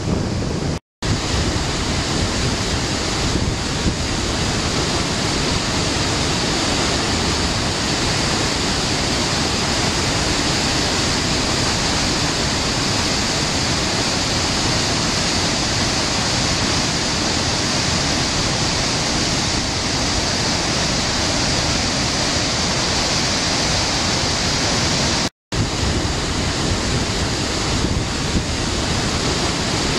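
Waterfalls in spate after heavy rainfall: a steady rush of white water over rock. The sound cuts out for an instant twice.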